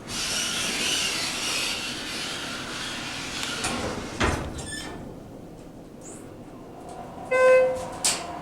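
Elevator doors sliding with a hissing rush that ends in a thud about four seconds in; near the end the elevator gives a single short chime, then a click.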